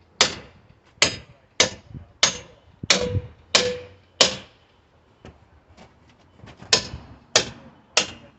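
Small sledgehammer striking in a steady run of sharp blows, roughly one every two-thirds of a second, while a wooden pallet is being knocked apart with a pry bar. A couple of blows near the middle ring briefly. Past the halfway point there is a pause of about two seconds with only faint light taps, and then three more blows.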